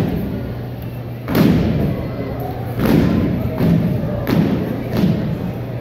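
A drill team's synchronized strikes on a gymnasium's wooden floor: several loud thuds roughly a second apart, each echoing through the hall.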